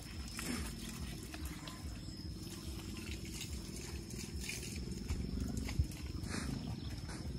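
Water buffalo bull grunting low and continuously, with a short knock about six seconds in.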